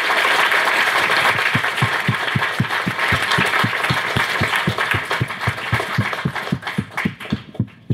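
Audience applauding, with one person's claps close by at a steady pace of about four a second; the applause dies away near the end.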